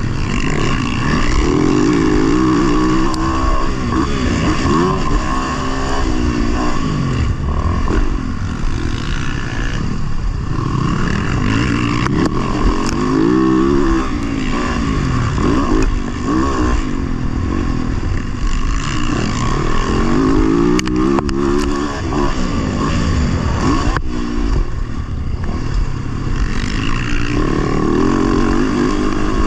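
Motocross dirt bike engine heard from the bike itself while racing, revving up and dropping back again and again every few seconds as the throttle is worked, with wind rush and occasional knocks from the track.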